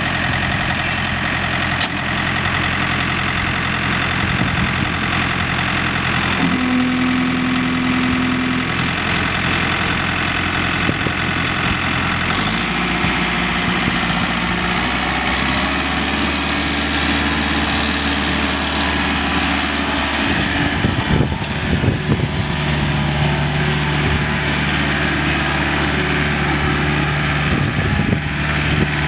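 A John Deere 110 backhoe loader's diesel engine running steadily, its note shifting a few times.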